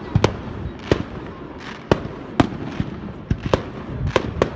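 Fireworks display: a string of sharp bangs at uneven intervals, about nine in four and a half seconds, over a continuous low rumble and crackle.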